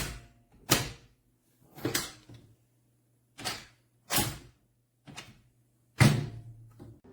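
Metal auto-close baby gate door being lifted open and let go, knocking and clanking against its frame and latch about seven times, roughly a second apart, each knock ringing briefly.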